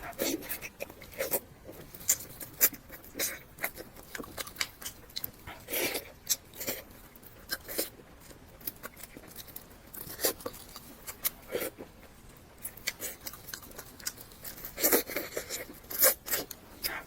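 Close-up mouth sounds of eating salt-baked chicken: chewing, biting and tearing meat, with irregular crunches and clicks.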